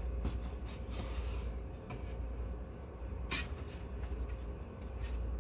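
Bread knife sawing through a loaf of Italian sourdough on a wooden cutting board, with a sharp click a little past three seconds in as a slice is set down, over a steady low hum.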